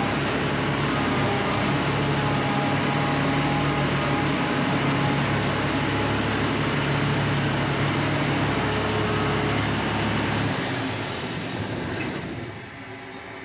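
Combine harvester running steadily with a heavy, even mechanical rumble; about ten seconds in the engine's low tone drops away and the machine winds down, with a few clicks near the end.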